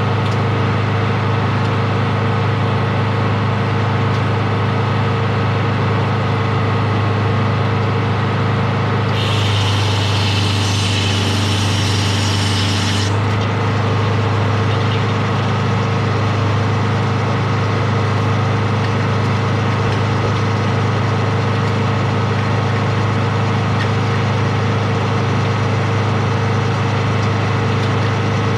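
An engine running steadily at a constant speed. For about four seconds a little before the middle, a higher-pitched whine joins it and then cuts off suddenly.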